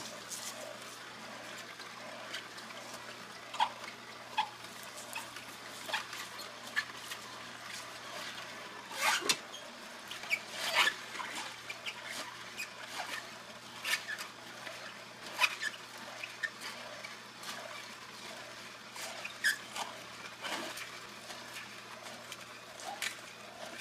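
Hurom slow juicer's auger crushing leafy greens and apple, with a steady low motor hum and irregular cracks and snaps as the produce is pushed through and pressed.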